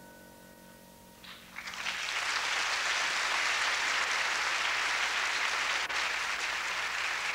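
The last chord of a grand piano rings and fades away, then audience applause starts about a second and a half in and holds steady.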